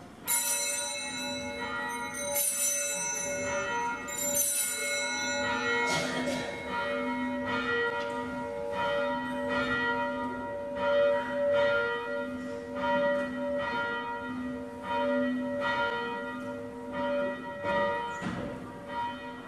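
Church bells ringing at the elevation of the chalice during the consecration at Mass. There are three bright clanging strokes in the first few seconds, then steady, pulsing ringing that fades near the end.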